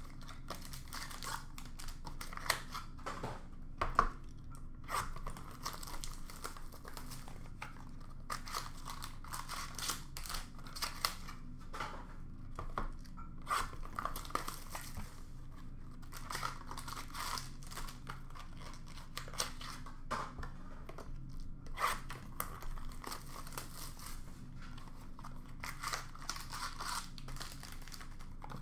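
Topps Museum Collection trading-card packs being torn open, their wrappers crinkling and crackling irregularly as the cards are handled, with a sharp tap about four seconds in.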